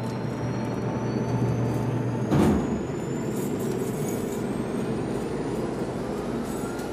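Jet aircraft engine noise: a steady rumble under a high whine that slowly rises, with one heavy thud about two and a half seconds in.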